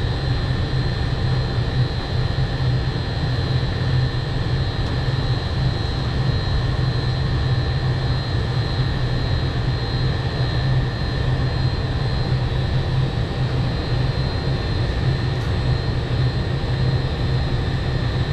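Steady mechanical drone of rooftop HVAC equipment running: a low hum under fan noise, with a thin, even high-pitched whine on top.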